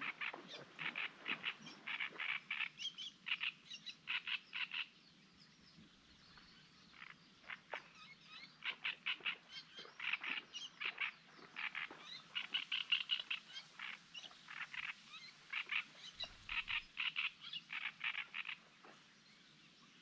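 Frogs croaking in a reed-bed marsh, calling in runs of short, rapid rasping notes. The runs come in bursts with a short lull in between.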